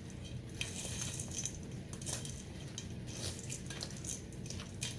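Plastic spoon stirring a thick, moist cornbread-and-chicken dressing mixture in a stainless steel mixing bowl, with irregular scrapes and light clicks of the spoon against the metal.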